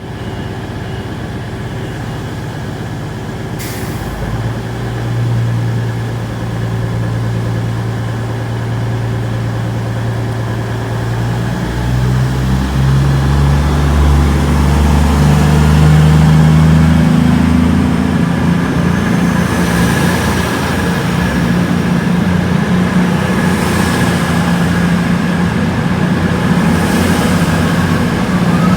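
Train at a station platform running with a low, steady drone that grows louder and steps up in pitch about twelve seconds in, as it powers up.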